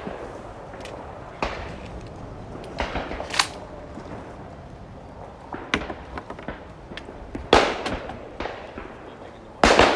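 Shotgun shots at clay targets, about six at uneven intervals, some fainter and some close and loud. The two loudest come about three-quarters through and at the very end, each followed by a short echo.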